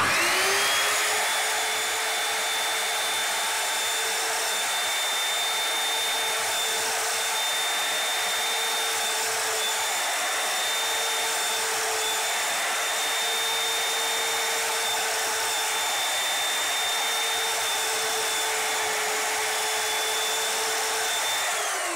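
Electric chop saw spinning up and then running steadily at full speed with a high whine while it slices a potato.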